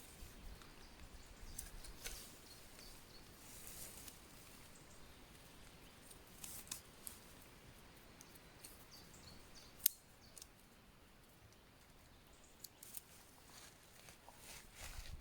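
Faint, scattered small clicks and crackles, with one sharper click a little under ten seconds in.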